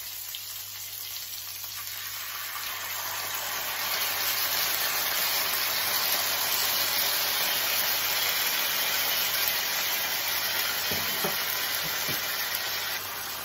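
Salmon fillets sizzling in an oiled grill pan over medium heat; the sizzle grows louder a few seconds in as sweet chilli sauce is poured over them into the hot pan.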